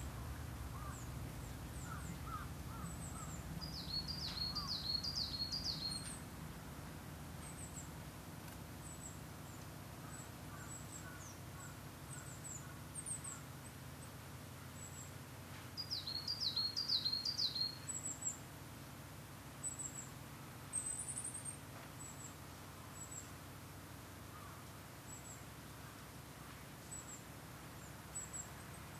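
Wild birds calling over a low, steady wind rumble. Twice, a bird gives a quick run of five or six high notes: about four seconds in, and again about twelve seconds later. Thin, high chirps and a few lower calls are scattered throughout.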